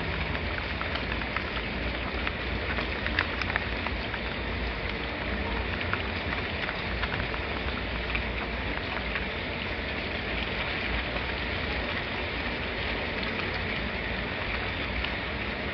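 Steady rainfall, with scattered individual drops ticking on a surface over a constant low rumble.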